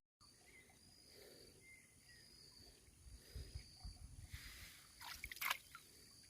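Faint insects trilling steadily in a high register. A few low thumps come around the middle, and near the end there is a short burst of rustling with sharp clicks, the loudest sound.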